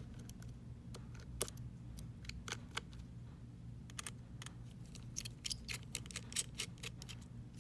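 Irregular light clicks of a small precision screwdriver working the tiny screws over an iPhone X's back camera, over a steady low hum.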